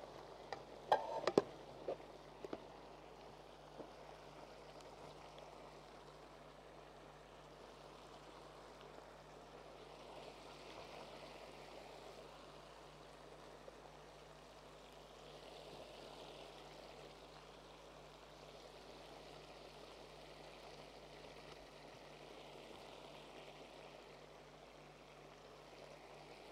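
Faint, steady simmering hiss of pots cooking on the stove. A few light clicks of a metal fork against the plate and pan come in the first few seconds.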